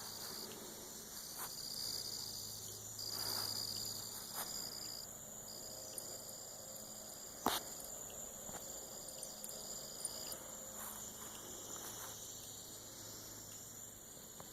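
Insects trilling in steady high-pitched stretches that start and stop, with one sharp click about halfway through.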